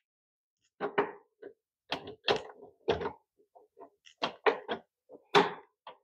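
Irregular small clicks, taps and scrapes, about a dozen, of a ground wire and tool being worked into a metal breaker panel's grounding bar.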